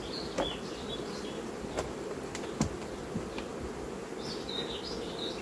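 Honeybees buzzing around an open hive, a steady hum, with a few sharp knocks as the hive's inner cover and lid are handled and set back on. A bird chirps near the end.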